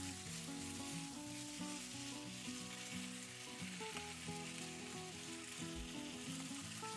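Gochujang-marinated pork sizzling in a hot nonstick frying pan as it is stir-fried and turned with wooden spatulas, a steady frying hiss. Soft background music plays under it.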